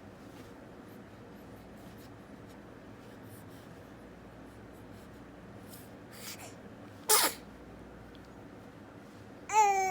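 Newborn baby sneezing once, a short sharp sneeze about seven seconds in. Near the end the baby starts a high-pitched cry.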